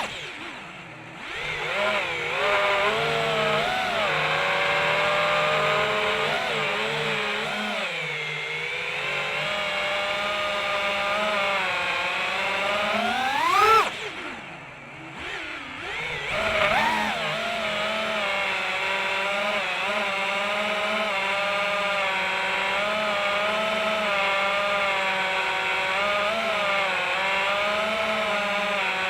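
Electric motors of an FPV racing quadcopter whining in flight, the pitch wavering with throttle. Just before the start and again about 14 seconds in, the whine sweeps sharply up on a throttle punch, then drops off for a second or two before settling back to a steady hum.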